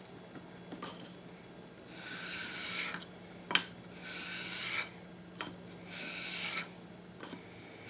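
Steel leather-splitter blade rubbed flat across 400-grit wet/dry sandpaper to sharpen it: three rasping strokes of about a second each, with a few light clicks between them.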